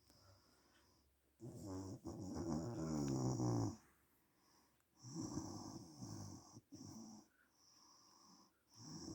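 A woman snoring in her sleep. A loud snore lasting about two seconds starts about a second and a half in, followed by quieter snores about five seconds in and near the end.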